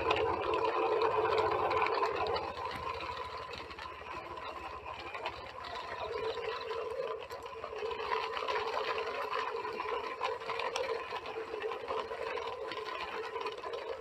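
Small electric motor and plastic gears of a battery-powered toy truck whirring steadily as it tows a string of toy dump trucks over dirt, a little louder at the start and again from about halfway.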